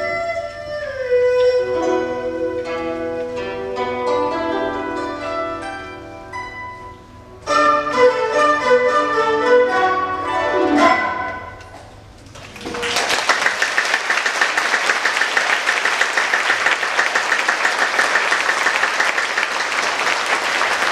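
Chinese traditional ensemble of dizi, erhu, zhongruan, pipa and guzheng playing the closing bars of a piece. It grows soft, then comes back with loud plucked and bowed chords that stop about twelve seconds in. Audience applause follows and carries on steadily.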